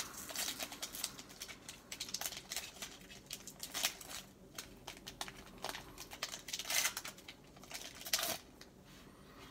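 Foil wrapper of a Panini football trading-card pack crinkling and tearing as fingers pick and peel it open, not smoothly. It comes as irregular rustles, with louder crackles about four, seven and eight seconds in.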